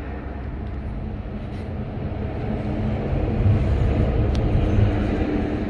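Steady low rumble of background noise, growing a little louder in the second half.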